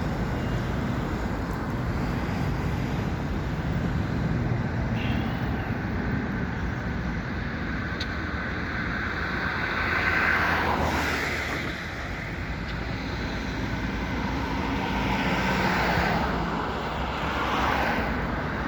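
Road traffic: a steady rumble of cars, with vehicles passing by about ten seconds in and twice more near the end.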